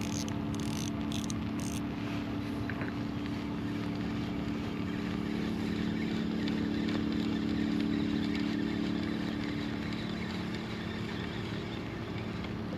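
Kayak's motor running steadily under way, a steady hum over water and wind noise, swelling slightly in the middle and easing toward the end.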